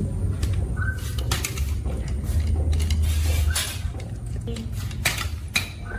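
Clicks, knocks and light clatter of small hard objects being handled, over a low rumble, with a short chirp-like tone coming back about every two and a half seconds.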